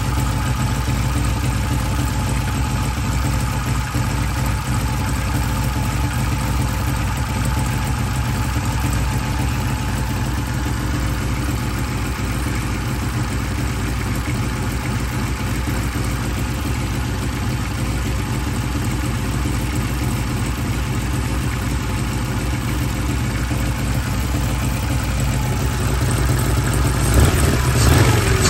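Fuel-injected BMW four-cylinder engine idling steadily, running on LS coil packs in waste-spark ignition. Near the end it picks up louder as a hand works at the throttle.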